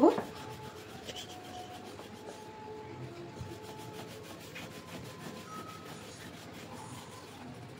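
Wooden rolling pin rolled back and forth over a floured ball of dough, a steady rubbing.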